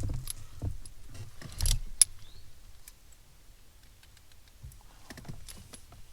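Small metallic clicks and light rattling of screws and hand tools being handled while the shift boot trim is unscrewed, with one sharp click about two seconds in.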